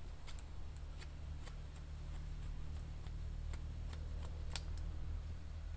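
Wood campfire crackling: scattered, irregular sharp pops and snaps over a steady low rumble, the fire burning down toward cooking coals.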